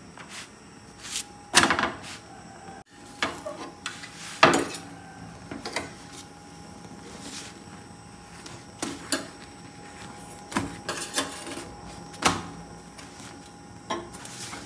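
Steel kitchen tongs and a roti knocking, tapping and scraping against an iron tawa griddle as the roti is turned and lifted over a gas flame. Several sharp clatters, the loudest about one and a half seconds in, about four and a half seconds in, and near twelve seconds.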